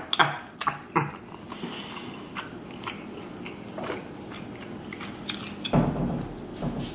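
Close-up mouth sounds of a person biting and chewing buttered shrimp meat, with wet smacks. Several sharp smacks come in the first second, quieter sporadic ones follow, and a louder burst comes about six seconds in.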